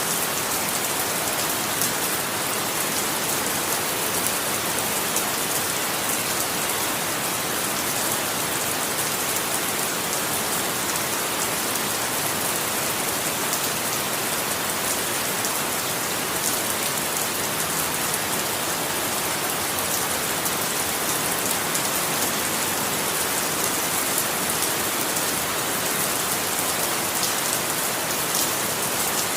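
Steady rain falling, a dense even hiss with faint patter of drops on a surface.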